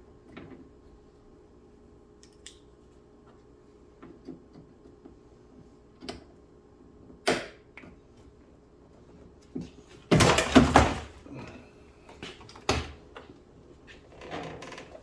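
Hand work on a car door's inner panel parts: scattered clicks and knocks of plastic trim and clips being handled, with a louder clattering stretch about ten seconds in and sharp single clicks a few seconds before and after it.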